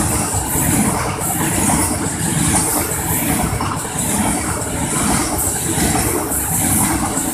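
Freight train of coal hopper wagons rolling past close by: a steady, loud rumble of steel wheels on the rails with a repeating clatter.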